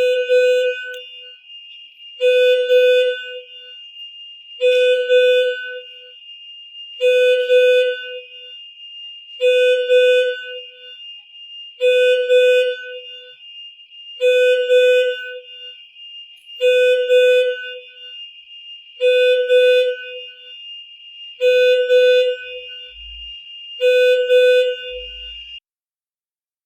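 Electronic warning alarm sounding a horn-like tone of about a second, once every two and a half seconds or so, over a continuous high-pitched tone. It sounds eleven times and cuts off near the end.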